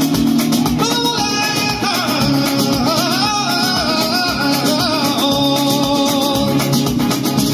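Gypsy rumba (rumba manouche) played on acoustic guitars with a fast, even strummed rhythm. A male voice comes in about a second in with a long wavering sung line.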